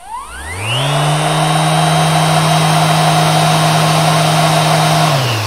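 YOKIJI KS-01-150-25 brushless random orbital sander switched on at its highest speed setting and run free in the air. Its whine rises in pitch over about the first second, holds steady, then falls away as it is switched off near the end.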